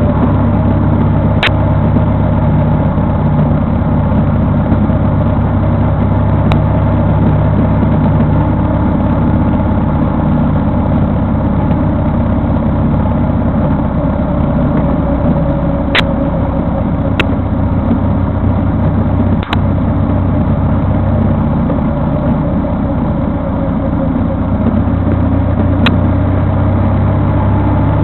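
Vehicle engine running steadily while driving, with a few sharp clicks here and there.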